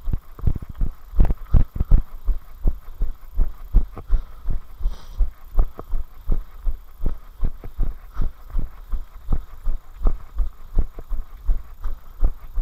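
Running footfalls on a dirt path, heard as a steady low thud about three times a second, the strides of the runner carrying the camera.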